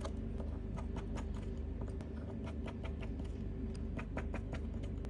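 Precision screwdriver driving small crosshead screws into a phone's plastic bottom cover, with many light, irregular clicks and ticks, over a faint steady hum.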